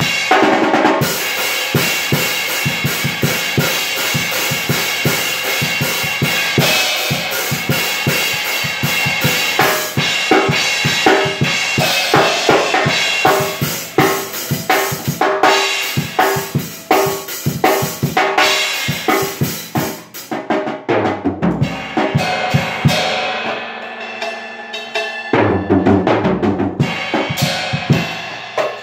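Acoustic drum kit played continuously: fast strokes on snare, bass drum and cymbals. About two-thirds of the way through, the cymbals fall away for a few heavier low drum hits.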